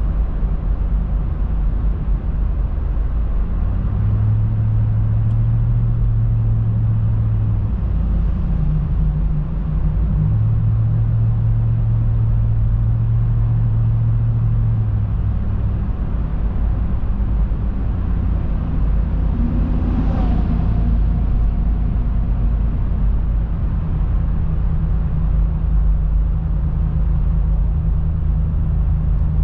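Steady low road and tyre rumble of a car driving through a road tunnel, heard from inside the cabin, with a low engine hum that steps up and down in pitch a few times. A brief swell of noise about two-thirds of the way through, like a vehicle passing.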